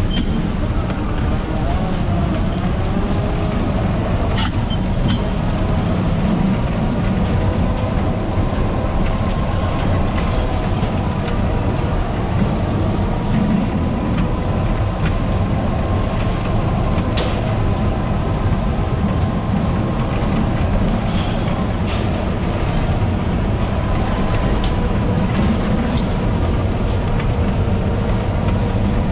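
Electric bumper car driving around a dodgem rink: a steady low rumble with a faint wavering whine and a few sharp clicks.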